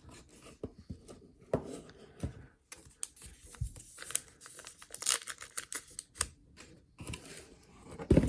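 Hands rummaging through a card subscription box: paper packaging crinkling and rustling with light knocks, in irregular spurts.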